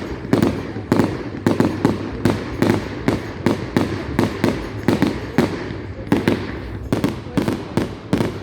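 Fireworks going off in rapid succession: a continuing volley of sharp, loud bangs, about two or three a second.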